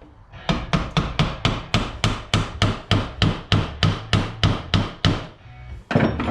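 A quick, even run of about twenty hammer blows, about four a second, then a pause and two more hits near the end, as a part of the side-by-side's suspension is driven into place.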